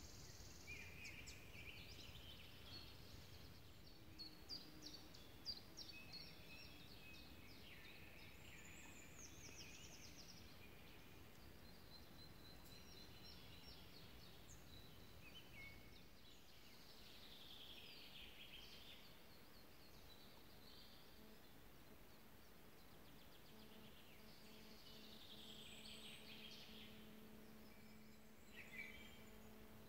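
Several songbirds singing faintly, in short trills and song phrases, over a low steady rumble. About three-quarters of the way through, a faint steady hum joins in.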